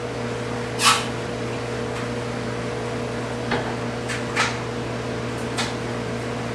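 Aluminum soft-plastic hand injectors handled against glass measuring cups and their metal stand as they are filled and set upright. A few short, sharp clicks and knocks come over a steady low mechanical hum, the loudest click about a second in.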